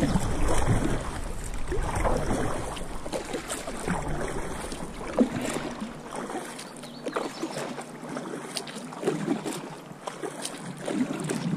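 Kayak paddle strokes: a double-bladed paddle dipping and pulling through calm creek water, with water splashing and dripping off the blades. Wind rumbles on the microphone for the first half and eases off about halfway through.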